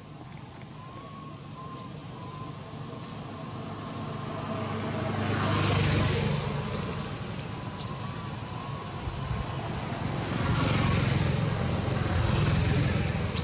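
Road traffic: vehicles passing, the rumble and hiss swelling to a peak about halfway through and twice more near the end.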